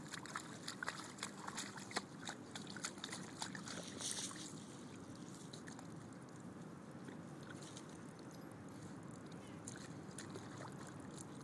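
German Shepherd puppy digging and nosing in wet mud and wood chips: a quick run of faint wet scrapes and clicks for about four seconds, then mostly a low steady background hiss with only a few scattered scrapes.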